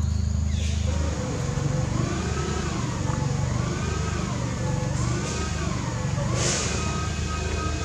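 A motor engine running steadily with a low hum, and from about a second in a tone that rises and falls about once a second.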